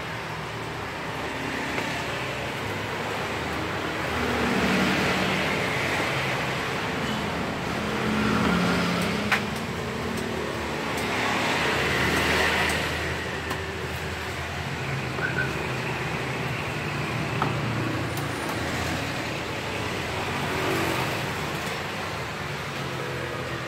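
Steady road traffic noise, with vehicles swelling past every few seconds. A few sharp knocks of a knife on a wooden cutting board come through it.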